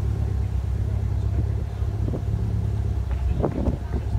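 Mitsubishi Lancer Evolution V's turbocharged four-cylinder running steadily near idle as the car crawls forward at a slow-drag pace.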